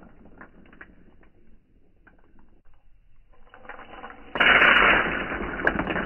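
Roasted coffee beans clattering as they scatter over a plastic cutting mat: a few last scattered clicks die away, then about four seconds in a sudden loud rattle as a handful of beans is thrown and crashes down, going on to the end.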